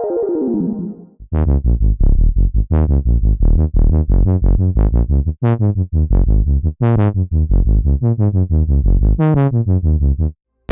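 Omnisphere software synth playing a Prophet-5-style sawtooth bass patch ("P5 Nice Saw Bass"): a run of short, punchy low notes in a busy rhythm that stops just before the end. It starts about a second in, after the tail of a falling chiptune-style arpeggio from the previous patch.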